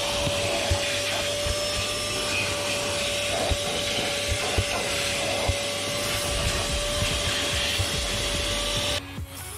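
Vacuum cleaner running steadily, a constant motor whine over rushing suction, with a few small knocks as it cleans a car's interior. It cuts off suddenly near the end.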